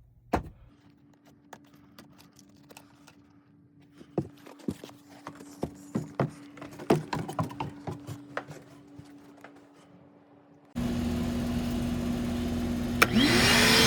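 Clicks and knocks of hands on the equipment over a faint steady hum, then about 11 s in the HVAC equipment comes on with a loud, steady rushing noise, and a rising whine follows near the end as a motor spins up. It is the system being run to test the newly installed condensate float switch.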